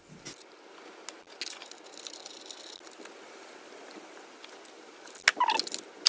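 Spark plug leads on a Renault Twingo II engine being handled and pulled from their plug wells: faint rubbing of rubber boots on plastic with scattered small clicks, then a sharper click and a short rattle about five seconds in.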